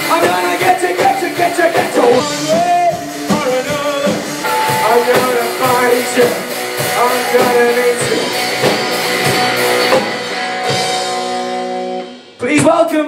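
Live rock band playing: electric guitar and drum kit with singing, settling on a held chord about ten seconds in. The sound dips sharply near the end, then comes back loud.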